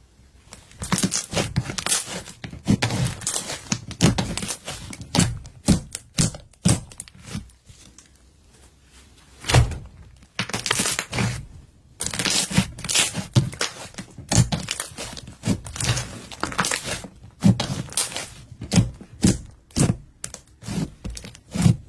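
Glitter slime being squished and pressed by hand, giving dense runs of crackling pops and clicks, with a lull of about two seconds near the middle.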